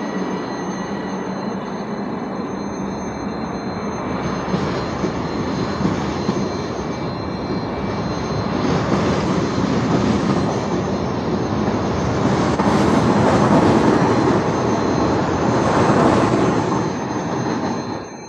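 Hitachi Rock (ETR 521) double-deck electric train pulling out of the station past the platform, its running noise growing louder as it gathers speed, then dropping sharply near the end as the last car goes by.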